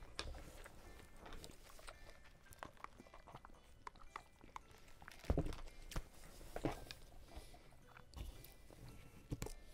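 Close-miked eating sounds: chewing and small mouth clicks, a sip through a straw from a plastic cup of iced lemonade, and a few soft knocks on the wooden table.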